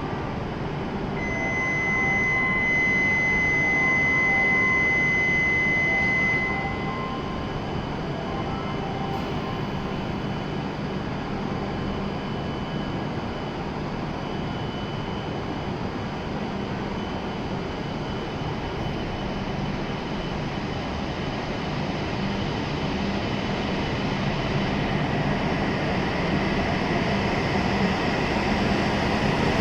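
E7 series Shinkansen train departing from the platform: a steady high electronic tone sounds for about six seconds near the start over the train's running noise, which then grows steadily louder as the train pulls out.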